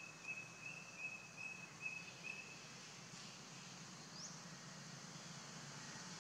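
A bird calling: a run of about seven short, evenly spaced notes on one high pitch over the first two to three seconds, then a single quick rising chirp about four seconds in, over a faint steady hiss.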